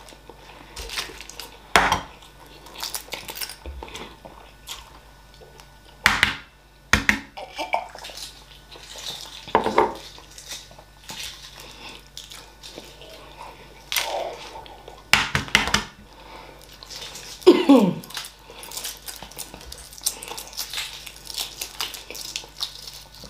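Hard-boiled eggs being cracked and peeled by hand: eggshell crackling and shell pieces clicking against ceramic plates, in scattered sharp clicks with quiet gaps between.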